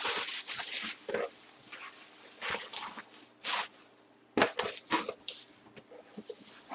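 Packaging being handled: bursts of crinkling and rustling with several sharp knocks and crackles, the loudest a cluster of cracks about four and a half seconds in.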